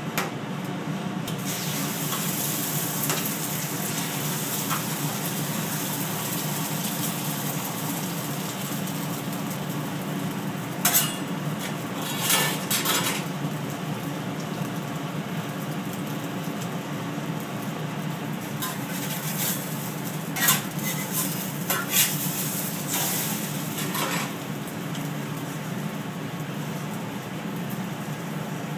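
Two eggs sizzling steadily as they fry on a hot flat-top griddle, over a steady low hum. A few sharper, louder moments come through the middle stretch.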